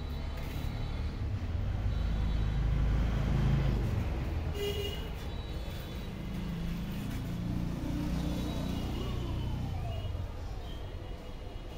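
Road traffic: a low vehicle engine rumble that swells and fades twice, with a few short high-pitched calls or beeps over it.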